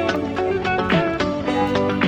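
Background music: a plucked guitar tune over a steady beat.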